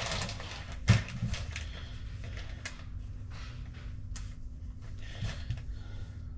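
Quiet handling noises at a kitchen counter: light rustling with a few sharp clicks and taps, the sharpest about a second in.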